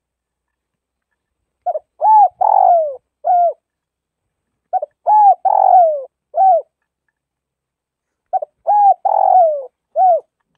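Spotted dove cooing, its song phrase given three times about three seconds apart. Each phrase is a quick lead-in note, a coo, a longer coo falling at its end, and a final short coo.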